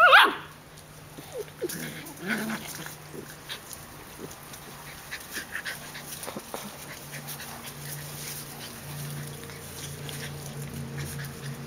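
Nine-week-old Welsh Terrier puppies play-fighting. A sharp wavering yelp comes right at the start and is the loudest sound, followed by a few brief low growls over the next couple of seconds. After that there is scuffling and scratching of paws in sand.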